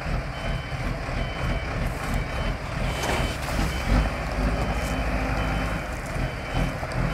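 ACE AF100D 10-ton diesel forklift reversing under load: its diesel engine runs with a low rumble under the reversing alarm, a short high beep repeating a little faster than once a second. The engine grows louder about four seconds in.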